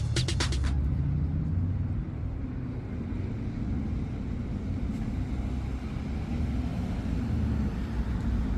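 Steady low outdoor rumble, a hum like distant traffic, with no birdsong or other distinct event.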